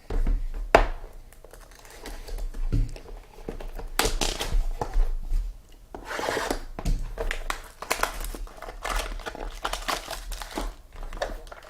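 Plastic and foil wrapping on a trading card box and packs being torn open and crinkled by hand, in irregular rustling bursts with a sharp snap about a second in.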